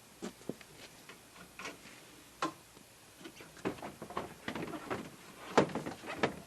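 Scattered clicks and knocks of a Honda Pioneer 700 side-by-side's seat being unlatched and lifted off, growing busier in the second half, with one sharp knock about five and a half seconds in.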